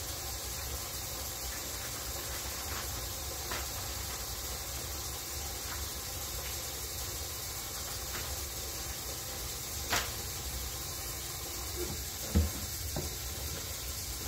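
Kitchen faucet running a steady stream of hot tap water into a plastic tub of sudsy water, filling a Synthrapol wash bath. Two short knocks break in near the end, the second one louder.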